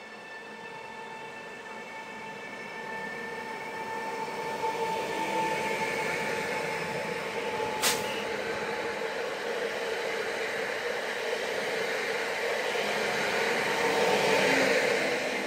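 Electric multiple unit passing close by, a steady motor whine over growing wheel and rail noise that is loudest near the end as the train goes past. A single sharp click about eight seconds in.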